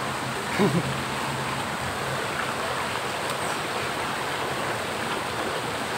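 Steady rush of flowing river water, with a short voice sound just after half a second in.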